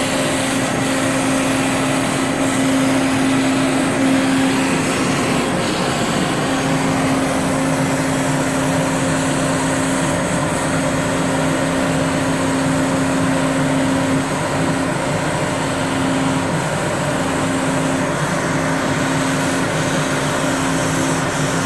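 CNC router spindle running steadily, a constant high hum with a hiss of machining noise, the hum briefly dipping a few times.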